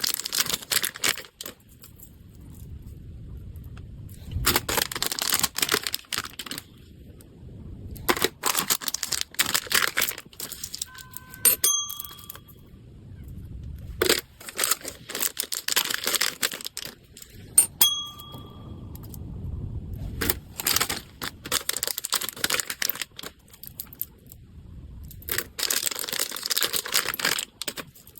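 Packaging being handled: plastic or paper wrapping rustling and crinkling in repeated bursts, with tearing. Twice, a short high bell-like chime sounds through the rustling.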